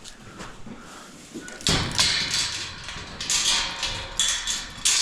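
A barn door scraping and clattering as it is moved, starting just under two seconds in, with several sharp bangs.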